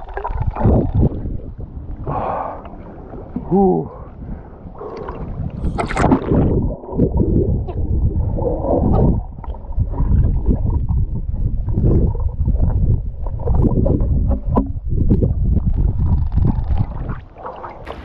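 Water heard underwater through an action camera held by a swimmer: muffled gurgling and churning from his strokes. Near the end the camera comes up out of the water and the sound opens out.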